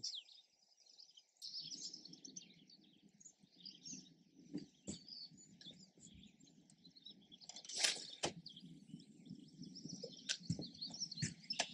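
Faint songbirds chirping and singing throughout over a low steady background hum, with one brief louder swish about eight seconds in.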